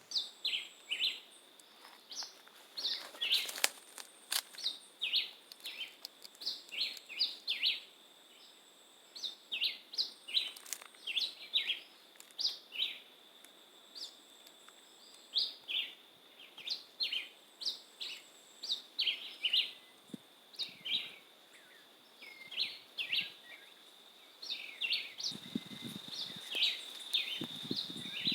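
Black-whiskered vireo, called John Chewit in Jamaica, singing short clipped phrases of two or three chirps, over and over. A steady high insect drone runs beneath, and there are a couple of sharp clicks a few seconds in.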